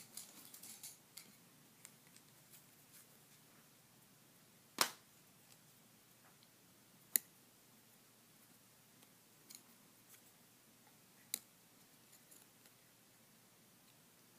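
Wooden popsicle sticks clicking against each other as they are set onto a glued layer: three sharp clicks spread across the stretch, with fainter ticks and a brief rustle at the start.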